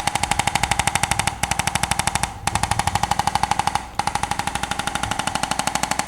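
A small powered device pulsing rapidly and evenly, about eleven beats a second, like a percussive massage tool running. It stops briefly three times.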